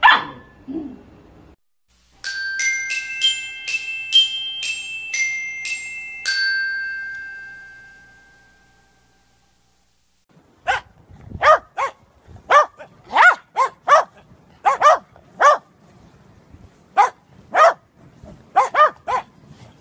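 A puppy gives a brief rising cry, then a short glockenspiel-like tune of ringing bell notes fades out. After that a dog barks over and over in short, sharp barks, some in quick doubles and triples.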